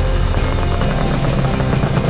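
Background music with a steady beat, over the steady drone of a paramotor's engine and propeller in flight.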